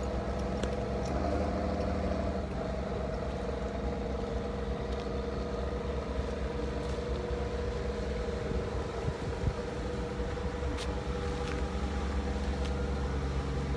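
Moored fishing boat's engine idling, a steady low drone, with a few light clicks over it.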